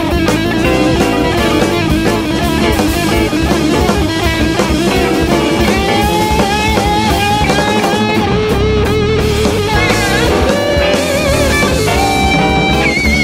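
Live jazz-rock band playing: an electric guitar plays lead lines over a busy drum kit, with long held, wavering notes in the second half.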